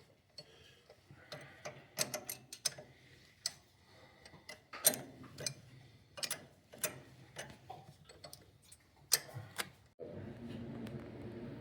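Irregular sharp metallic clicks and taps, roughly one or two a second, from hand tools and steel clutch parts knocking together. About ten seconds in, a steady low rumble starts abruptly.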